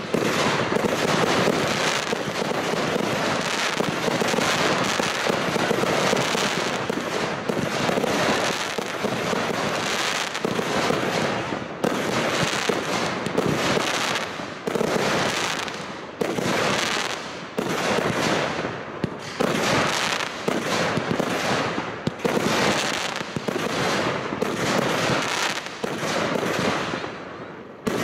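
Fireworks display: aerial fireworks launching and bursting in rapid, nearly unbroken succession, many sharp bangs overlapping, with a few brief lulls.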